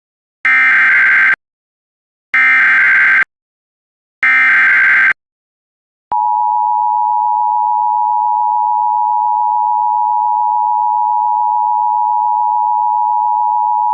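Emergency Alert System tones announcing an immediate evacuation order. First three loud, screeching bursts of SAME digital header data, each about a second long and about a second apart. Then, about six seconds in, the steady two-tone attention signal (853 and 960 Hz) begins and holds.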